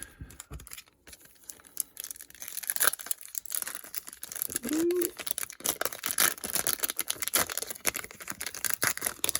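A foil Pokémon booster pack wrapper being crinkled and torn open: a dense crackling with many sharp clicks that builds up about a second and a half in and keeps going.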